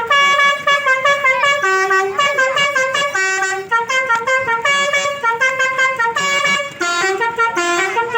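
Basuri melodic vehicle horn playing a tune: a quick run of short, steady notes stepping up and down in pitch.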